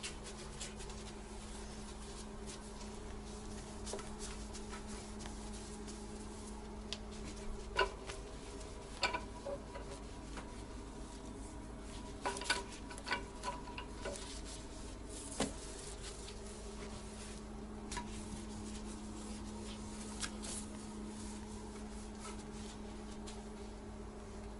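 A damp cloth is rubbed over a ceramic toilet tank, with scattered light knocks and clicks as the hand and cloth bump the tank and its fittings, mostly in the middle of the stretch. A steady low hum runs underneath and drops out for several seconds in the middle.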